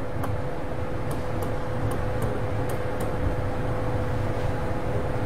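Steady background noise of an indoor table tennis arena between points: a low rumble with a constant hum and a few faint ticks.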